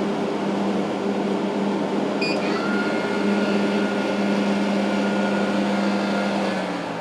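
Fantastic Fan roof vent fan running with a steady motor hum and airflow noise. About two seconds in there is a short electronic beep from its control board, then a thin higher whine. Near the end the hum drops as the fan slows down.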